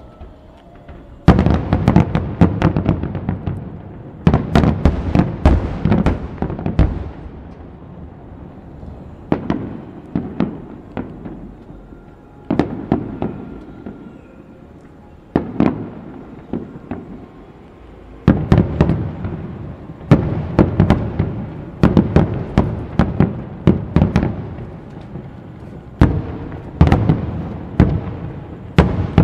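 Aerial firework shells bursting in rapid volleys: dense runs of sharp bangs that come in clusters of a few seconds, with short lulls between them.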